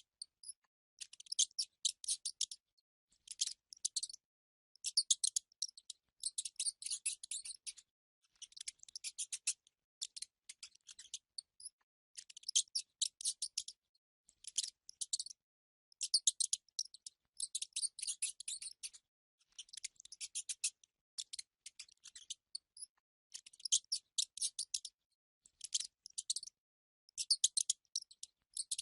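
Mice squeaking in rapid, high-pitched chittering runs, each lasting a second or two with short pauses between.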